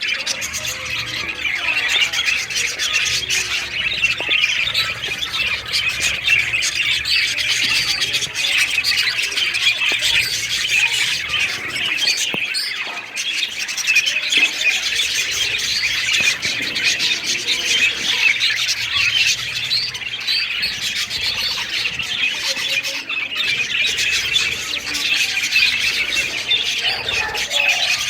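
Many small captive birds chattering and squawking together, a dense, unbroken din of overlapping calls.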